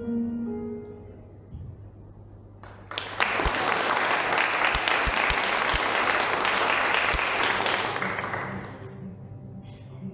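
Soft music notes fading out, then applause breaking out about three seconds in and dying away a second or two before the end.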